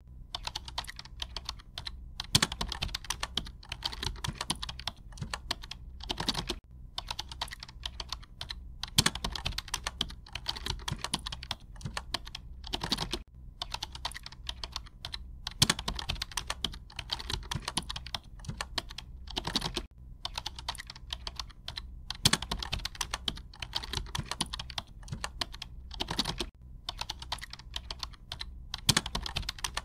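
Rapid typing on a keyboard: quick clicks in runs of a few seconds with short pauses between them, and a louder single stroke every three to four seconds. A faint steady low hum lies underneath.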